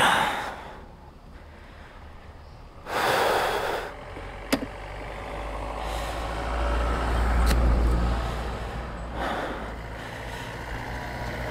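A road vehicle passing: a low rumble that swells about halfway through and fades away. Two short noisy bursts come near the start and about three seconds in, and a couple of sharp clicks are heard.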